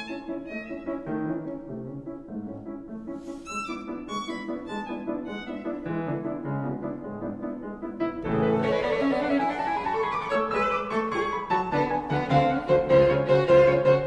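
Background music led by bowed strings such as violin and cello, with piano, swelling fuller and louder about eight seconds in.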